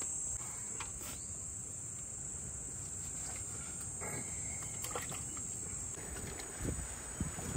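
Steady high-pitched chorus of insects, with a low rumble underneath and a few soft knocks near the end.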